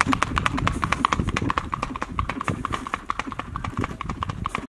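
Hooves of a gaited Rocky Mountain horse striking asphalt in a fast, even four-beat singlefoot (rack): rapid, evenly spaced clip-clop, growing fainter as the horse moves away.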